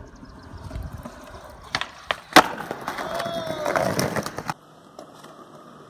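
Skateboard wheels rolling over rough concrete, with several sharp board clacks; the loudest is a hard slap about two and a half seconds in. The rolling noise cuts off suddenly about four and a half seconds in.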